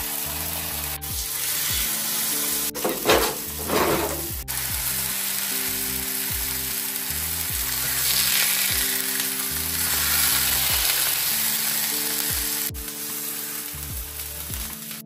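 Food sizzling as it fries in a pan, a steady hiss, with a louder rush of noise lasting about a second and a half about three seconds in. Background music with a stepping bass line plays throughout.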